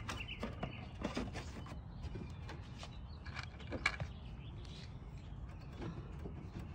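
Plastic push-pin retaining clips being pressed into a 2014 Toyota Camry's felt trunk-lid liner: a few scattered light clicks and knocks as the panel is handled, over a steady low rumble.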